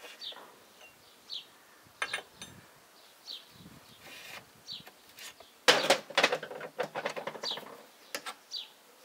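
Steel parts clinking and rattling inside a U445 tractor's cast-iron gearbox housing as a selector fork is worked onto its shift rail, a few clicks about two seconds in and a louder run of clatter past the middle. A bird chirps repeatedly behind it, a short falling note about once a second.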